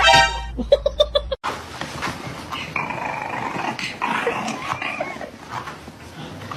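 A dog: a loud high call at the start, then a few short yips, then, after an abrupt cut, a longer stretch of growling and whining.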